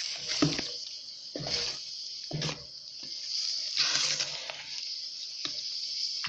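Wooden spoon stirring thick quince purée and sugar as it cooks in a pot, with strokes about once a second over a steady high hiss.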